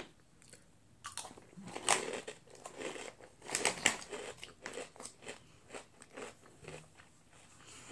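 A person biting into and chewing a crunchy wheat snack: a run of dry, irregular crunches starting about a second in and fading near the end.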